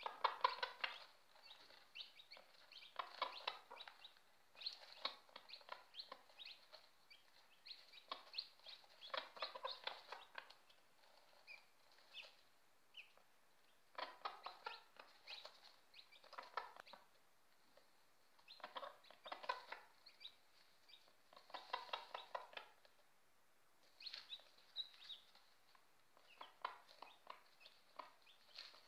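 Broody hen clucking in quick runs of short clucks, a run every two to three seconds, as she pecks at food for her chick: the mother hen's food call to her chick.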